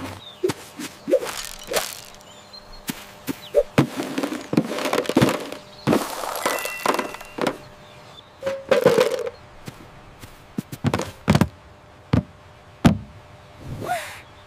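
Cartoon sound effects of litter being gathered and tossed into plastic sorting bins: a quick, irregular string of short thunks, knocks and swishes, with a few brief squeaky tones mixed in.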